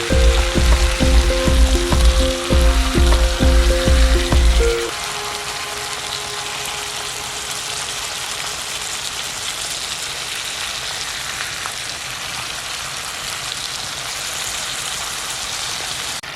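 Background music with a steady bass beat, which stops about five seconds in, leaving meat sizzling steadily on a hot iron griddle.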